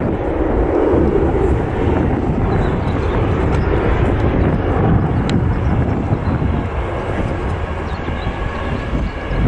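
Jet airliner engines running loud, a dense steady rumble and rush of a narrowbody jet passing close during takeoff or landing.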